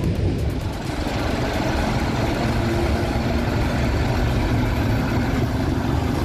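Diesel locomotive T478.1004 running steadily as it draws its train past along a platform, a deep continuous engine drone.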